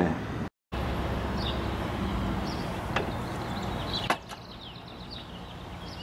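Outdoor background: a steady low rumble with a couple of sharp clicks. After the second click, a little past four seconds in, it turns quieter with birds chirping.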